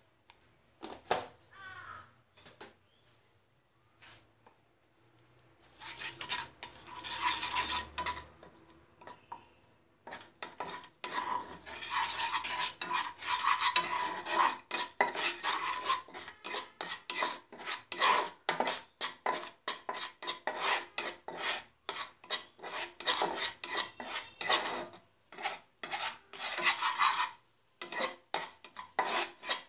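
Spatula scraping and knocking against a nonstick pan as a spice paste is stirred and fried in oil. There are a few scattered taps at first, then fast, continuous stirring strokes from about ten seconds in, with a short break near the end.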